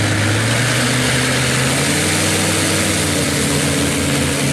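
Ultralight aircraft's propeller engine running at taxiing power, a steady note that swells slightly in pitch midway.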